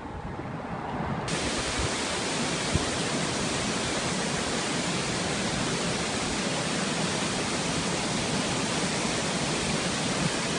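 Waterfall: a steady, even rush of falling water, cutting in abruptly about a second in.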